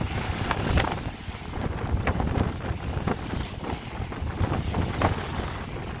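Strong wind buffeting the microphone with a low rumble, over choppy lake water splashing irregularly against a dock and shoreline rocks.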